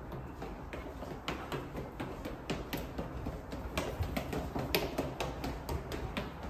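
Footsteps and a golden retriever's claws clicking on a tiled floor as they walk along: irregular sharp clicks several times a second over a low rumble.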